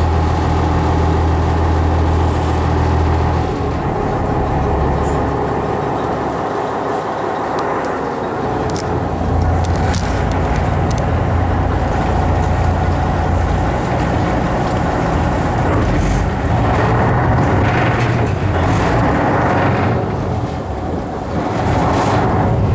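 A sightseeing boat's engine running with a steady low hum, heard from on board over water and hull noise. The engine note eases off about three and a half seconds in and picks up again around eight seconds.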